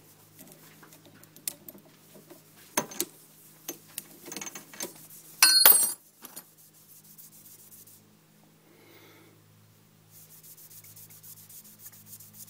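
Drill bit being worked out of a drilled pool ball and handled: scattered small clicks and knocks, with a loud ringing metallic clink about five and a half seconds in. A light, fast scraping follows near the end.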